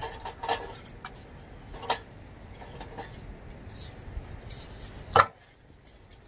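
Small pieces of wood being handled and packed into a folding metal hobo stove: scattered clicks and knocks, with one sharp knock about five seconds in.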